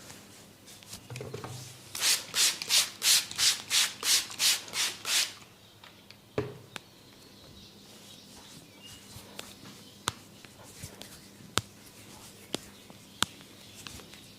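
Brisk rubbing strokes of a head massage, about a dozen at roughly three a second, followed by a few sharp, separate clicks.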